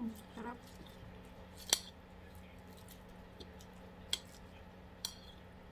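Eating sounds: a few sharp, separate clicks a second or so apart, the loudest about one and a half seconds in.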